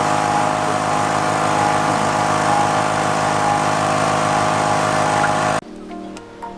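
A small engine running steadily at a constant speed, then cutting off suddenly about five and a half seconds in.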